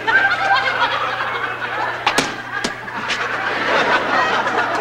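Studio audience laughing, with two sharp smacks of boxing gloves landing about two seconds in, half a second apart.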